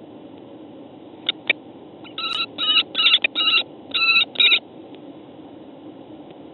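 Female common kestrel calling: a quick run of about six short, harsh calls starting about two seconds in, after two short clicks, part of a calling dispute between two females.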